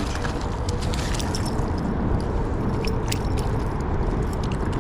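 Steady rushing noise of river water, with a scatter of short sharp clicks and taps in the middle.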